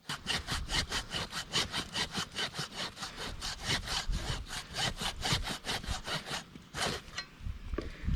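A saw cutting through a donkey's overgrown hoof horn in quick back-and-forth strokes, about four a second, stopping shortly before the end. The horn is so hardened that the saw barely bites.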